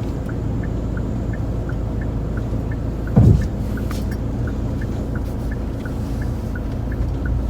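Car interior road and engine rumble while driving, with a light ticking about twice a second. One brief louder sound falls in pitch about three seconds in.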